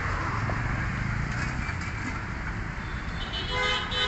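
Road traffic running steadily, with a vehicle horn sounding once, briefly, near the end.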